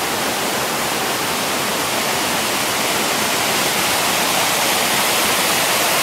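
A low waterfall and fast, rain-swollen mountain stream rushing over boulders. It makes a steady, even wash of white-water noise that grows slightly louder near the end.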